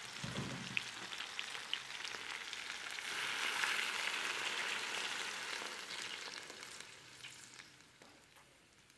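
Chicken drumettes sizzling in hot oil in an aluminium pot. The sizzle swells about three seconds in and then dies down toward the end as water is added to the pan.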